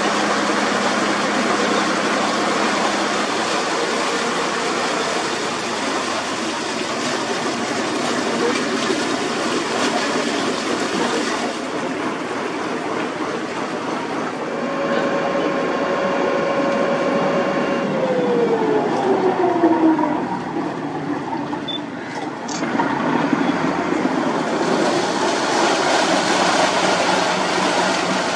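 Harbourside ambience: a steady, dense wash of noise, with a humming motor-like tone in the middle that holds for a few seconds and then slides down in pitch, like something passing by.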